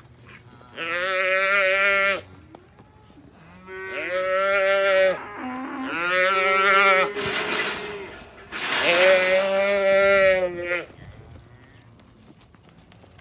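Calf bawling: four long calls, each one to two seconds long, with short pauses between them.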